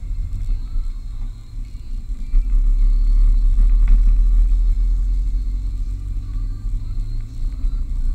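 Low, steady rumble of a car's engine and tyres heard from inside the cabin while driving, growing louder about two and a half seconds in.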